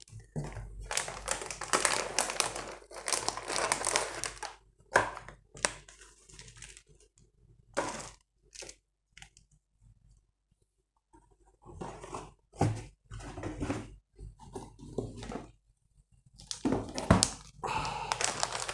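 Motherboard box and its packing being handled: irregular rustling and crinkling of packaging in two stretches, with a few light knocks between them.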